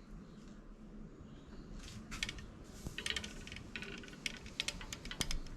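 Handling noise from a wooden speargun being picked up and felt over: light rubbing, with scattered small clicks and taps starting about two seconds in.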